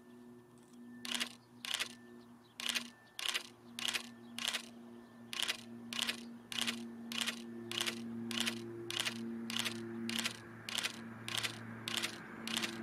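Train wheels clacking over rail joints at low speed, about two clicks a second and sometimes in pairs, starting about a second in. Under the clacks runs a steady low hum.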